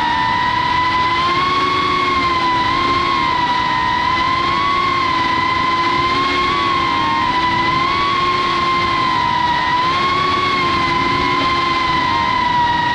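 Cinewhoop FPV quadcopter's motors and ducted propellers whining steadily, the pitch wavering gently up and down with small throttle changes as it flies low.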